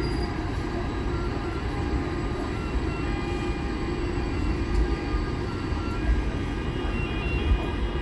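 Train running on the rails: a steady low rumble with brief faint high tones now and then.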